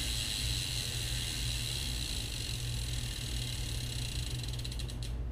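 Steady room tone in an empty garage: an even hiss over a low hum, with a brief flutter near the end.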